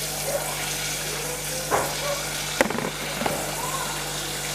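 Steady hiss of water running from a kitchen tap, with a few light knocks about two and three seconds in.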